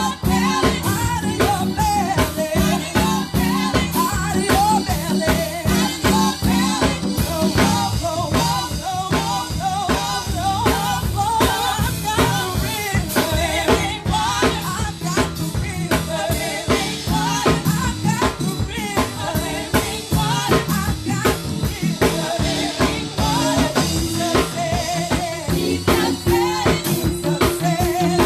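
Gospel praise band playing a worship song: a drum kit keeps a steady beat under the band, with a singer's voice over it.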